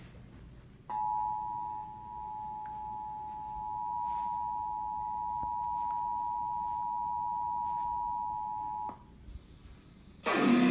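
Emergency Alert System attention signal: two steady tones sounded together, starting about a second in and held for about eight seconds before stopping abruptly. It heralds an emergency broadcast, here a child-abduction (Amber Alert) bulletin. Plucked-string music starts just before the end.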